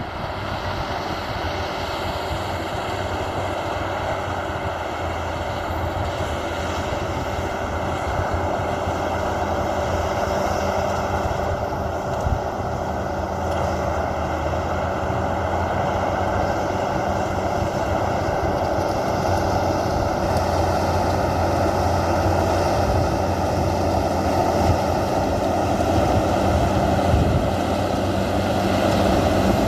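Caterpillar D8 bulldozer's diesel engine running steadily under load, growing gradually louder.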